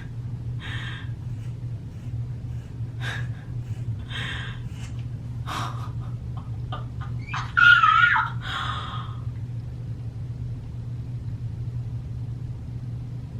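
Scissors cutting through hair in a handful of short snipping passes over a steady low hum. The loudest pass, about two thirds in, carries a brief wavering squeak.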